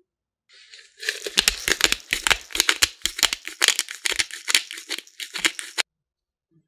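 Pepper mill grinding black peppercorns: a dense run of rapid crackling clicks in quick bursts that stops abruptly near the end.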